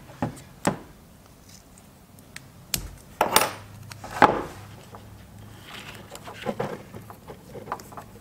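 Scotch Super 33+ vinyl electrical tape pulled off its roll and cut into short pieces, loudest twice, about three and about four seconds in. Light clicks and clatter of tools and wires handled on a workbench run among the pulls.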